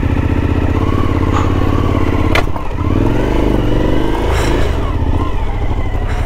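Motorcycle engine running as the bike rides slowly along a dirt track. The engine note dips briefly and picks up again a little before halfway, close after a single sharp click.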